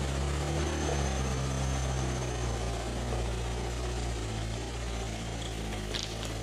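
An engine running steadily with a low hum whose pitch shifts slightly about a second in, and a few light clicks near the end.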